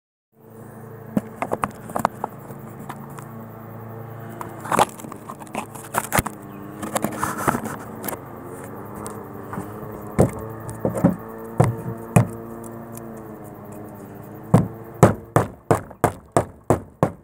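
Claw hammer knocking and scraping against lead head roofing nails and the corrugated iron roof sheet as the nails are levered out, over a steady low hum. In the last few seconds comes a quick, even run of about nine loud knocks.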